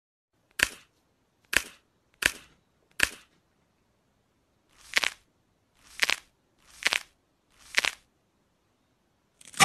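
A series of eight short, sharp clicks with dead silence between them: four about a second apart, then after a pause of about two seconds four more, each starting slightly softer.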